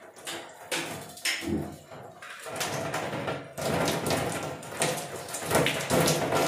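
A few knocks and clicks as hands work at a gas geyser's knobs and hose fittings. From about two and a half seconds in, an uneven rushing noise follows.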